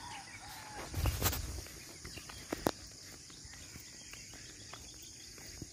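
Steady high-pitched drone of insects chirring in roadside vegetation, with soft footsteps on a paved road. About a second in there is a louder muffled bump, and a sharp click comes a little later.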